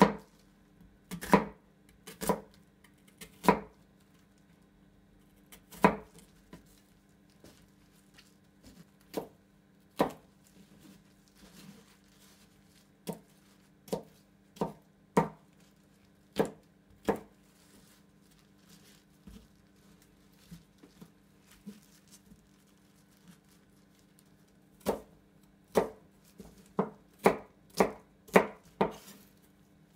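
A kitchen knife cutting through an onion and knocking on a plastic cutting board as the onion is diced into chunks. The cuts come singly with uneven pauses, then in a quicker run near the end.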